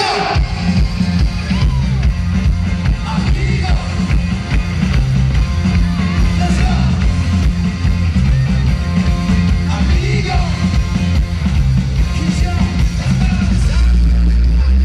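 Live pop-rock band playing through a loud concert PA, heard from within the crowd: heavy bass with electric guitar and a voice singing at times. The bass swells loudest near the end.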